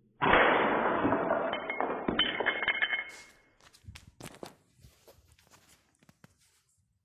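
An air rifle pellet striking a ceramic tile square-on and shattering it: a sudden loud crash that lasts nearly three seconds with some ringing near its end, followed by scattered small clicks and ticks as fragments settle.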